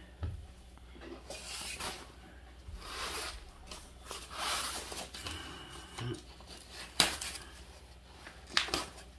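Rustling of a baby bouncer's fabric seat cover and paper tags being handled, with two sharp snips of scissors cutting off tags, about seven and eight and a half seconds in.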